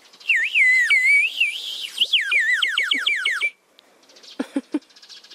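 Child blowing a horse-shaped clay water whistle (svistulka) with water inside: a warbling trill that wavers up and down, then breaks into quick falling chirps, and stops about three and a half seconds in.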